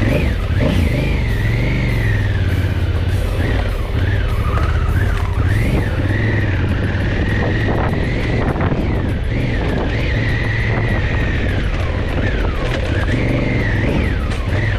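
Honda Africa Twin 1000's parallel-twin engine running as the motorcycle is ridden over dirt, with heavy wind noise on the microphone.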